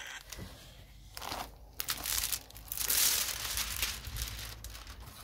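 A diamond painting canvas and its clear plastic cover film crinkling as hands handle and smooth it flat. The crinkling comes in uneven bursts and is loudest about three seconds in.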